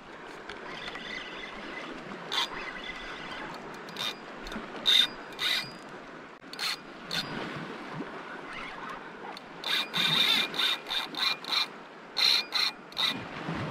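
Spinning reel being cranked: its mechanism gives short scratchy clicking bursts, a few scattered at first and then a quick run of them, about three a second, in the last few seconds.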